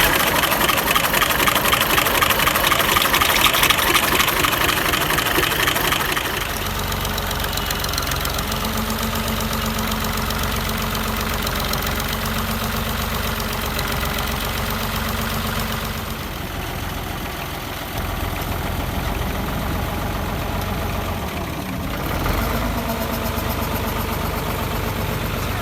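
An engine running just after starting: louder and brighter for about the first six seconds, then settling into a steady, lower idle.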